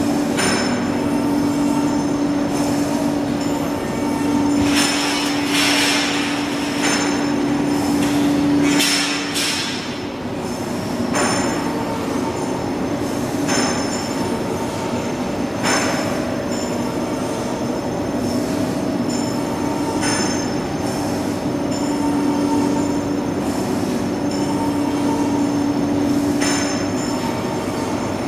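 Heavy industrial machinery running: a steady hum and a high whine, with short bursts of hiss or clatter every few seconds.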